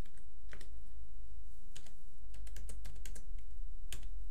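Computer keyboard being typed on: a few separate key clicks with a quick run of keystrokes in the middle, as a reference number is entered. A steady low hum runs underneath.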